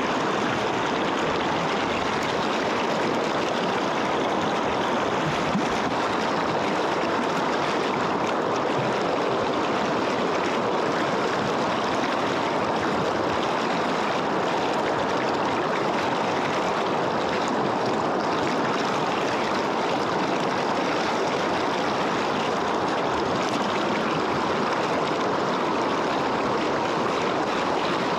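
Rushing river water: a steady, even rush that holds at the same level throughout.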